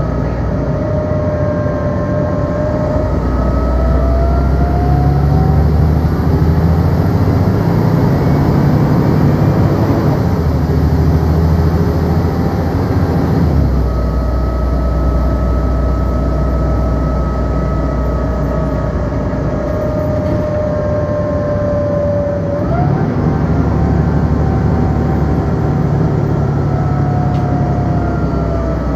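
Volvo B7LA articulated city bus running, a steady engine drone with a whine that drifts slowly in pitch. The low drone changes about halfway through, and the whine jumps up in pitch about three-quarters through.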